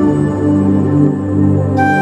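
Background music: a slow, ambient piece of held, sustained notes, its chord changing near the end.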